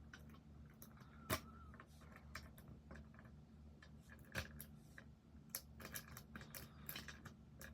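Faint, irregular metallic clicks of a rake pick working the pins of a pin-tumbler lock, with a few louder clicks and a quicker run of them near the end, over a low steady hum.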